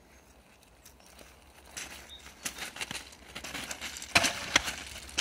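Footsteps crunching on railway track ballast, then several sharp knocks about four seconds in, as a heavy piece of old wooden sleeper is handled over the stones.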